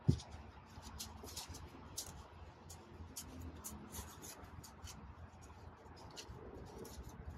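Paper shop towel rubbing over a thin, greased gasket, wiping off the excess grease: faint, irregular scratching and rustling. A short low sound sits at the very start.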